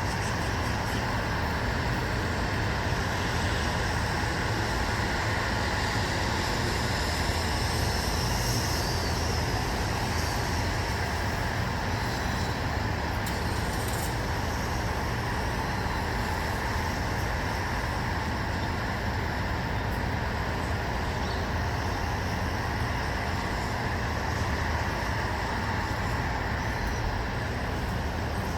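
Steady outdoor ambient noise: an even hiss over a low, constant rumble, with no distinct events.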